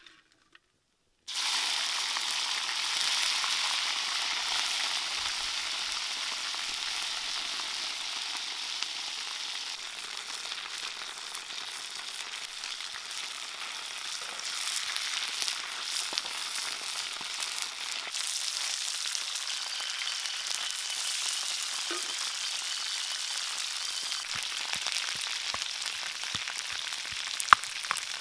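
Whole insects frying in hot oil in a blackened pan over a wood fire: the sizzle starts suddenly about a second in as the bugs go into the oil, then runs as a steady loud sizzle with many small crackles and one sharp pop near the end.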